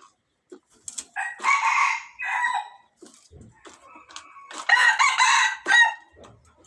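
Rooster crowing twice, each crow a loud call in two parts, with a few short clicks and knocks in between.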